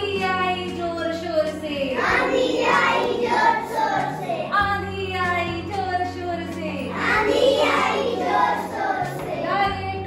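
A children's song: young voices singing over backing music with a steady, held bass line.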